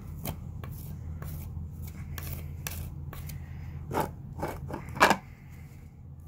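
Metal putty knife scraping and spreading joint compound over chewed, splintered wood on a door frame, in a series of short strokes. The loudest strokes come about four and five seconds in.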